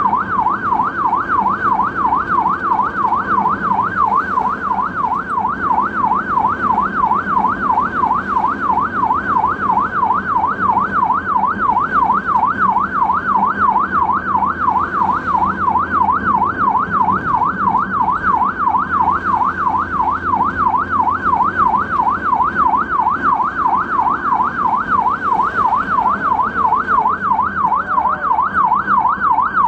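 Ambulance electronic siren on yelp, a fast steady warble sweeping up and down a couple of times a second without a break, over the low rumble of the moving vehicle.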